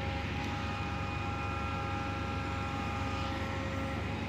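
JCB 3DX backhoe loader's diesel engine running steadily while the backhoe arm lifts and swings a loaded bucket, a low drone with a high, steady whine over it.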